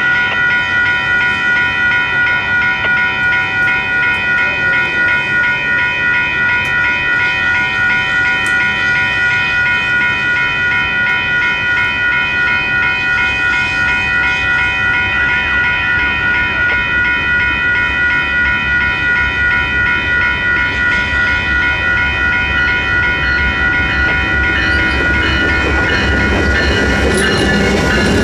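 Two WCH electronic railroad crossing bells ringing steadily, a fast even series of bright metallic dings, while the crossing signals are active. Over the last few seconds the low rumble of the approaching train grows as its Amtrak P42 diesel locomotive reaches the crossing.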